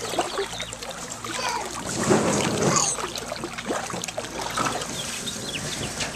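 Swimming-pool water sloshing and lapping as a small child paddles through it.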